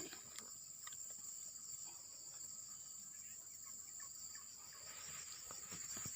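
Faint, steady, high-pitched chorus of insects chirring, with a few soft clicks and rustles.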